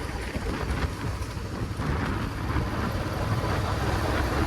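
Steady low wind rumble on the microphone over a Royal Enfield Classic 350's single-cylinder engine running while the motorcycle is ridden.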